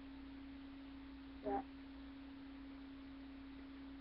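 A faint, steady hum at a single constant pitch, with one brief voice-like sound about a second and a half in.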